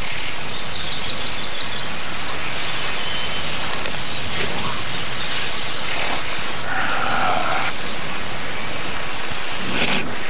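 Woodland ambience: a steady hiss of background noise with birds chirping in short rapid trills, about a second in and again from about six and a half seconds.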